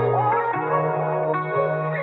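Ambient background music with slow, held notes.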